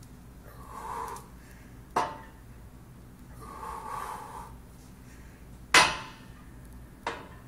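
Strained, heavy breaths of a lifter bench pressing a 185 lb barbell, two long breaths, with three sharp clanks from the loaded barbell. The second clank is the loudest.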